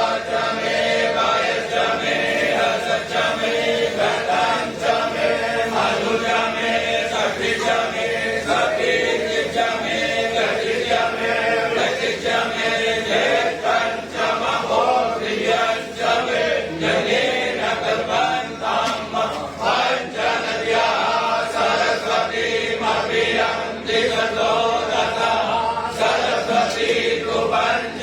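A group of voices chanting Hindu mantras together in a steady, continuous chant.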